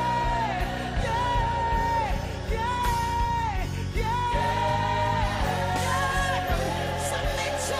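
Music from a slow gospel song: a high melody line of long held notes, each ending in a downward slide, over a steady low accompaniment.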